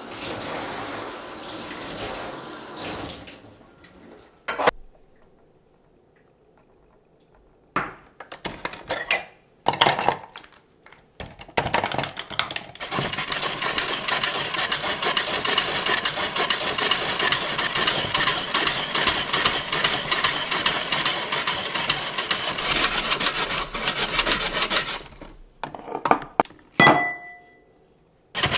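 Hand-cranked shaved-ice machine grinding ice cubes: a long, steady crunchy rasping after a few knocks and clatters as it is loaded. A short ringing knock comes near the end.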